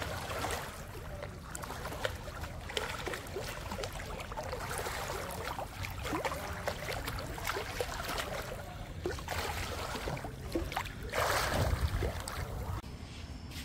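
Water splashing and trickling, with a louder rush about eleven seconds in that cuts off suddenly near the end.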